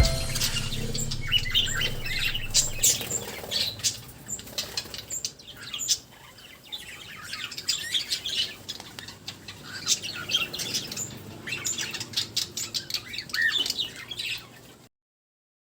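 A flock of caged budgerigars and cockatiels chirping and chattering, many quick high chirps overlapping; the sound cuts off abruptly near the end.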